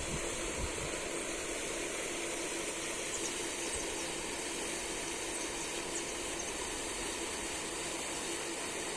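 Steady outdoor background: an even hiss with a faint steady hum underneath, and a few faint high chirps a few seconds in.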